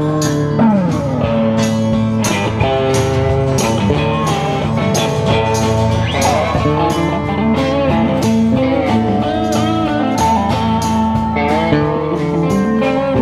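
Live band playing a song on electric guitars and drums, with a steady beat of about two drum hits a second and notes that bend in pitch.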